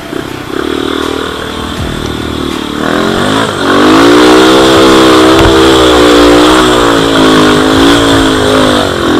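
Enduro dirt bike engine running at moderate revs, then revved up about three seconds in and held high and loud as the bike is ridden, the pitch wavering slightly with the throttle.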